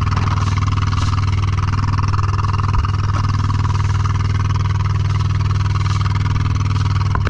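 Steady drone of a running motor: an even low hum with a constant hiss above it.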